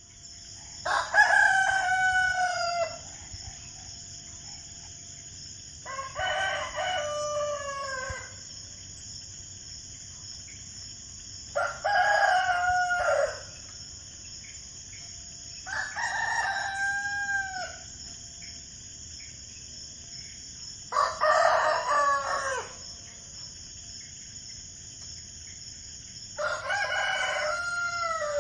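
Rooster crowing cock-a-doodle-doo six times, each crow about two seconds long and spaced roughly five seconds apart, over a steady high-pitched background hiss.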